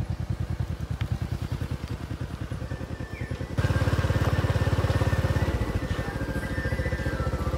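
A small motorcycle engine running steadily, with a fast even put-put. A little past halfway it gets louder and music comes in over it.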